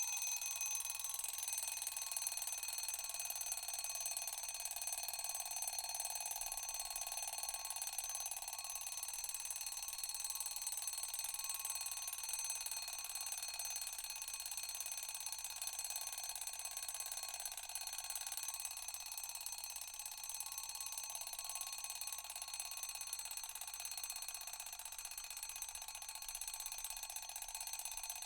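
Analog alarm clock ringing continuously, without pause, easing slightly in loudness toward the end.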